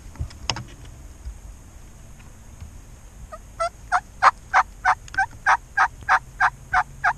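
Turkey yelping: a run of about a dozen evenly spaced yelps, roughly three a second, starting about three seconds in.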